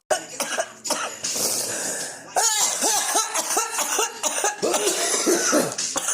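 A person in a coughing fit: breathy noise and a few short coughs, then, about two seconds in, a rapid run of voiced coughs, two or three a second.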